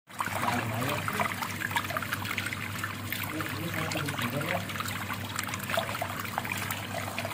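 Water running and trickling steadily, with many small splashes.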